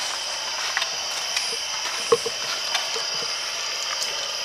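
Ghost box (a radio that sweeps through stations) giving out steady static hiss with a faint high whine, broken by irregular soft clicks and ticks.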